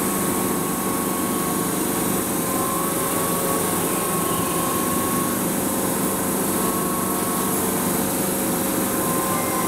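Keihan 8000 series electric train standing at an underground platform, its onboard equipment giving a steady whirring hum, with a faint higher whine that comes and goes.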